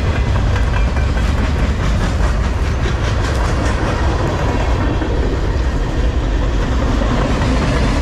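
Freight cars (boxcars and a tank car) rolling past: a steady rumble of steel wheels on rail, with the clickety-clack of wheels over rail joints, clearest a few seconds in.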